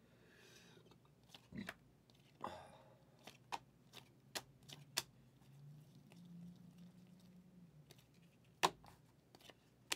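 Glossy Mosaic football trading cards being flipped through by hand: a string of soft, irregular clicks and snaps as each card slides off the stack, one sharper snap near the end.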